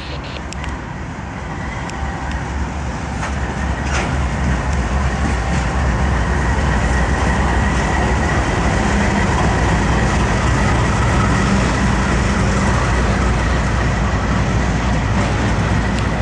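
CSX diesel-electric freight locomotives passing close by at the head of an autorack train. The engines' loud drone builds over the first few seconds and then holds, with wheels clattering over the rails.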